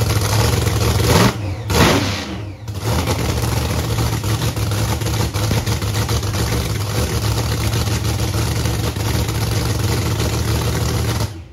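Drag race car engine running loudly in the pits, revved quickly a couple of times about a second in, then settling back to a rough, steady idle. It cuts off suddenly near the end as the engine is shut down.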